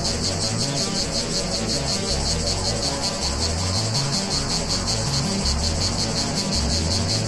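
Field-recorded cicada chorus, a dense high shrill buzz pulsing rapidly and without letup, layered over a low analog synthesizer bassline stepping between notes.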